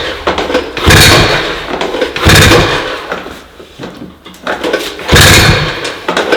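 Rebuilt Ski-Doo 800 H.O. two-stroke snowmobile engine being pull-started on its recoil starter: three hard pulls, each a short burst of cranking that dies away without the engine settling into running.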